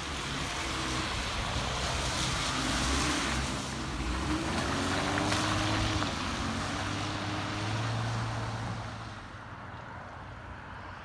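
Road traffic: a vehicle passing by, engine and tyre hiss swelling, then fading about nine seconds in.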